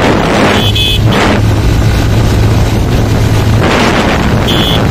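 Motorcycle riding at speed, with wind rushing loudly over the microphone in repeated gusts and a steady engine hum underneath. Two brief high tones sound, about a second in and near the end.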